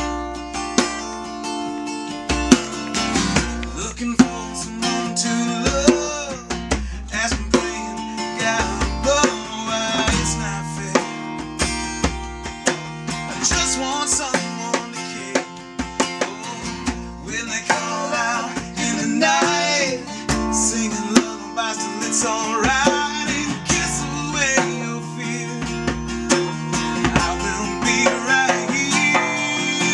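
A band playing a song led by guitar.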